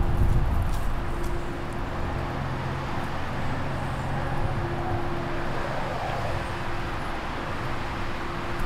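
Steady outdoor background rumble with a low, even hum, and a brief low swell right at the start.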